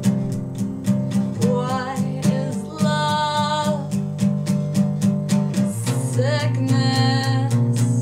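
Acoustic guitar strummed in a steady rhythm, capoed, with a woman singing two long phrases over it.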